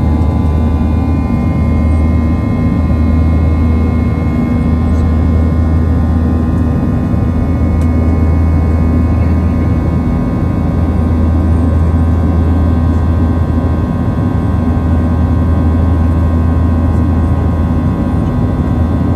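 Boeing 737-700's CFM56-7B turbofan engines running steadily, heard inside the cabin as a constant deep drone with steady whining tones above it.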